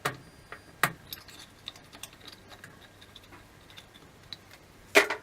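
Sharp clicks and knocks of a metal screwdriver prying against a tap's metal parts as a tight piece is levered off: one at the start, another just under a second in, and a louder clatter near the end, with faint small ticks between.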